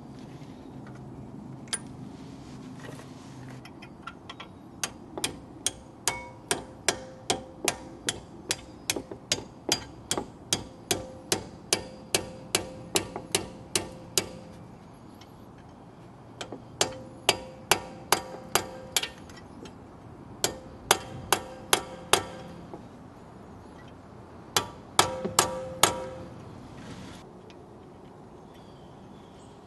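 Light hammer taps on a punch, driving the brake pad retaining pins home through a W220 S-Class brake caliper: quick, even metallic taps with a slight ring, about three a second, in three runs with pauses between.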